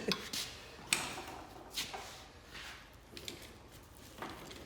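A handful of sharp, separate knocks and clicks of metal parts and tools being handled, the strongest right at the start and about a second in.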